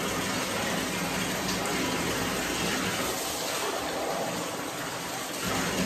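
Water running steadily from a bathtub faucet into the tub while a cup is filled to rinse a puppy.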